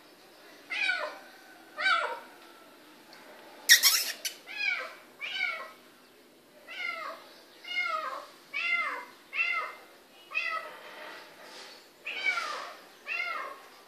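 A kitten mewing over and over, about a dozen short high calls that rise and fall in pitch. A sharp clatter sounds about four seconds in.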